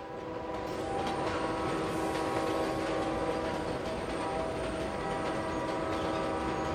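Steady running noise of a moving passenger train heard from inside the carriage, coming up over the first second and then holding even, with a faint steady hum in it.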